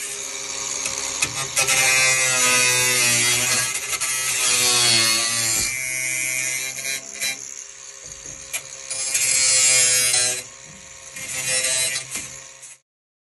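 Cordless angle grinder with a cut-off disc cutting through the sheet-steel side panel of a van, its motor whine wavering in pitch as the disc bites. It cuts in several stretches with short dips between and stops abruptly near the end.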